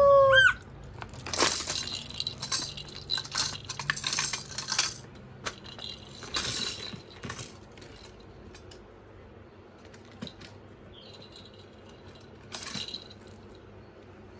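A plastic laundry basket rattling, clicking and scraping as a baby pushes and handles it, in clustered bouts over the first five seconds and twice more later. A brief high-pitched voice rises at the very start, the loudest moment.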